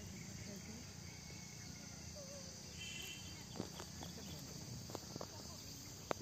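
Steady high chirring of insects in the background, with faint distant voices and a few sharp clicks in the second half.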